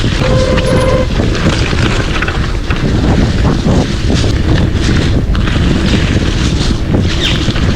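Wind buffeting the microphone, a loud, steady rumble with no speech. A short steady tone sounds briefly near the start.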